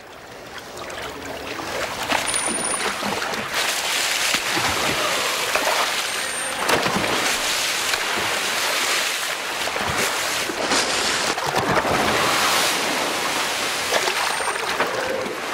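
Dolphins splashing and churning the water of a show pool: a steady wash of water noise with several louder splashes, and three brief high whistles.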